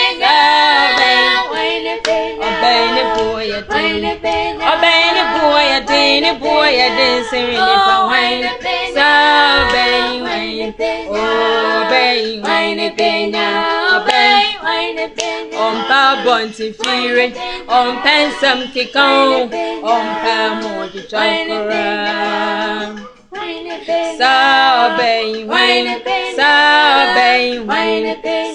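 Three women singing a gospel song together a cappella, with hand claps; the singing breaks off briefly about 23 seconds in, then carries on.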